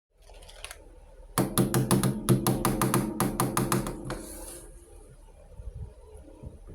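A short burst of music, about fourteen quick, evenly spaced notes over a steady pitched tone, lasting under three seconds and ending in a brief hiss, followed by faint light taps.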